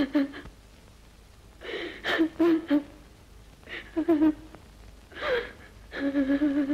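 A woman sobbing, her crying coming in five short gasping, whimpering bursts separated by brief pauses.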